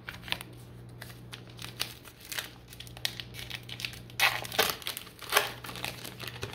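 Plastic trading-card pack wrapper crinkling and tearing as it is ripped open by hand. It makes irregular crackles that are loudest a little past the middle.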